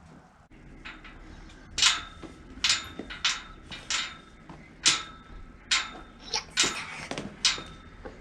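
A run of about a dozen sharp knocks, roughly one every two-thirds of a second, starting about two seconds in, each with a faint ring behind it.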